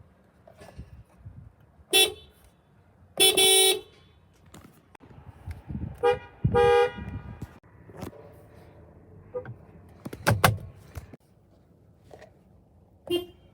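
Car horn honked in separate blasts: a short toot about two seconds in, a longer half-second blast just after three seconds, then a short toot and another half-second blast around six seconds, and a faint short toot near the end. A loud thump with no clear pitch comes a little after ten seconds.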